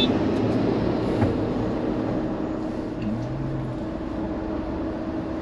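Steady vehicle engine and road drone inside a Mahindra Thar's cabin as it creeps along in a traffic jam, with a constant low hum.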